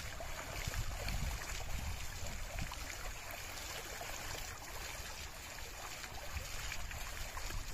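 Shallow water splashing and churning irregularly as a fish hooked on a hand line thrashes at the surface.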